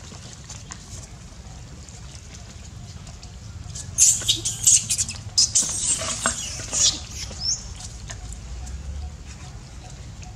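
Macaques squealing and shrieking: a cluster of loud, high-pitched calls starting about four seconds in and lasting around three seconds.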